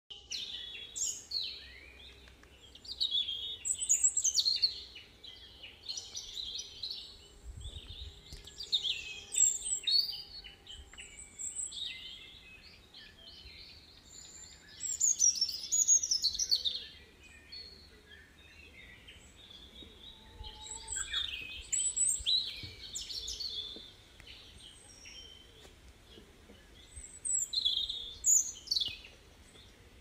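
Several forest birds singing and calling: high chirps and whistled phrases that come in bursts every few seconds, some of them sliding up or down in pitch.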